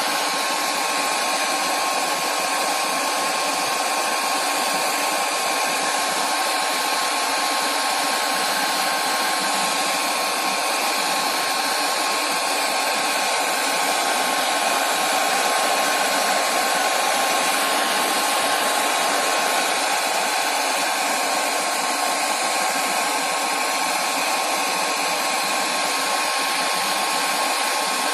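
Handheld hair dryer running steadily: a rush of blown air with a constant thin whine, used as a makeshift heat gun to warm a phone's LCD for removal.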